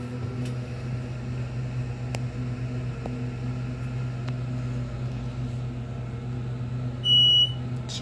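Delaware hydraulic elevator travelling up, with a steady low hum from its pump motor throughout. About seven seconds in, the cab's floor signal gives one short, loud, high electronic beep as the indicator reaches the second floor.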